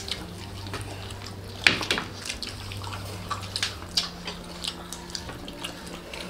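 Close-up eating sounds of people chewing fried chicken and rice: scattered wet mouth clicks and lip smacks, with one sharper, louder click about a second and a half in.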